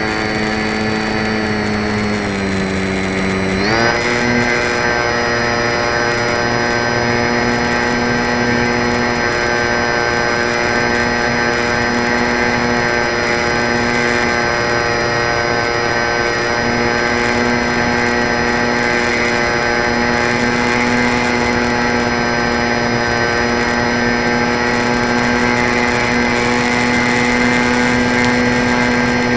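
Electric RC plane's motor and propeller whining, heard from a camera mounted on the plane. The pitch sags for a couple of seconds, then rises sharply about four seconds in and holds steady.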